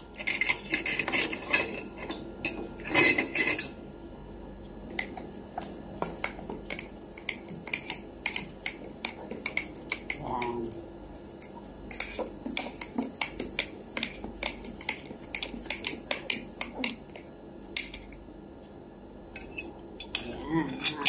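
A metal spoon clinks against a ceramic mug in quick, repeated taps as coffee is stirred. Louder clatter comes in the first few seconds, and cutlery clinks on a plate near the end.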